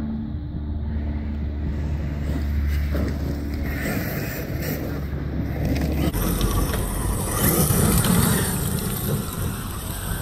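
Arrma Kraton EXB 8S electric RC monster truck driving over a loose dirt track, its motor and tyres running. There is a steady low rumble for the first six seconds, and the sound changes abruptly about six seconds in.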